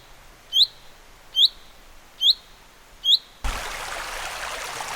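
A small bird calling a short, high, rising chirp, repeated four times a little under a second apart. About three and a half seconds in, it cuts off abruptly into a steady rushing hiss.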